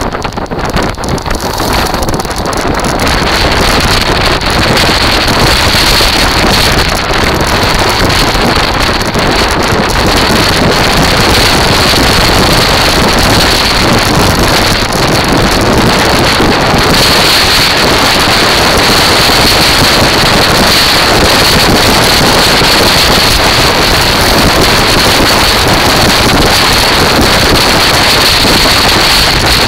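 Wind buffeting the microphone over the wheels of a kite buggy rolling across a shingle beach: a loud, steady rushing noise that grows louder about three seconds in.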